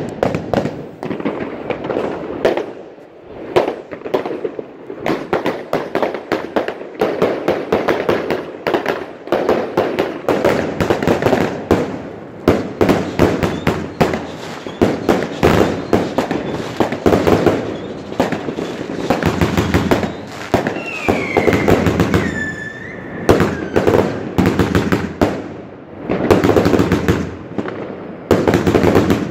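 A Vuurwerktotaal Signature consumer firework cake (cakebox) firing a continuous barrage of shots and bursting effects, with dense crackling between the reports. A whistling shot glides down in pitch about three quarters of the way through.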